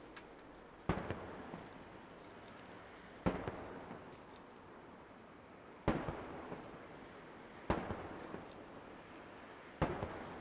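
Aerial firework shells bursting: five sharp booms about two seconds apart, each trailing off in a fading echo.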